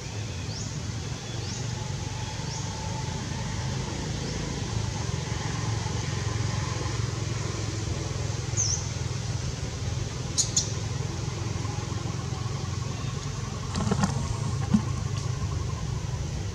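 Steady low outdoor rumble, with a single short high bird chirp about nine seconds in, a couple of sharp high clicks a little later, and a knock about fourteen seconds in.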